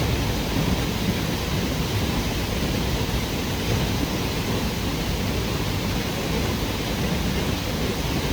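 Waterfall: the steady, even rush of falling water plunging into a pool.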